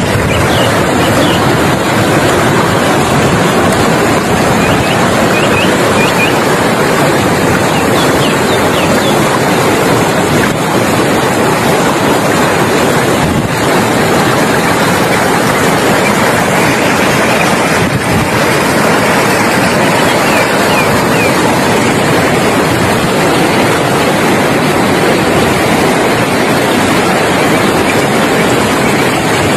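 Loud, steady rush of a rain-swollen, muddy river running fast over rocks and boulders in rapids.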